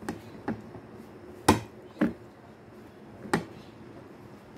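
Eating by hand: about five short, sharp clicks and knocks, the loudest about a second and a half in, as grilled fish is picked apart on a plate and chewed.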